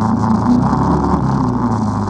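ATV engine running steadily under way, its pitch wavering a little.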